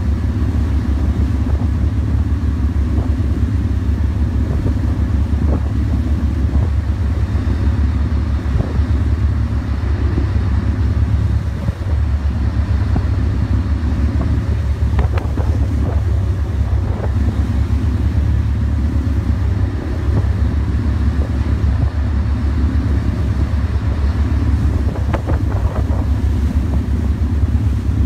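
Pilot boat's engine running steadily at speed, a loud, even low drone, with wind on the microphone and a few faint splashes in the second half.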